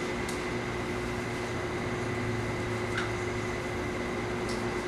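Steady room noise with a constant low hum and a fainter high whine, broken by a few faint soft ticks.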